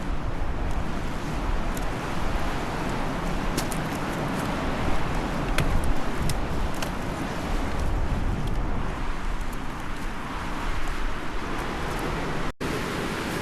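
Steady rushing of a fast mountain river, a dense even noise with a deep rumble and a few sharp clicks. The sound cuts out for an instant near the end.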